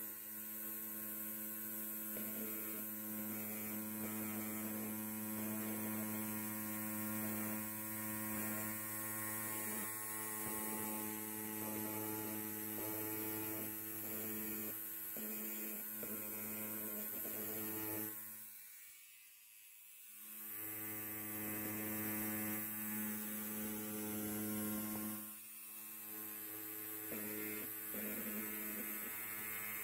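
Electric hair clippers buzzing steadily. The buzz fades away for about two seconds roughly two-thirds of the way through, then comes back, with a smaller dip a few seconds later.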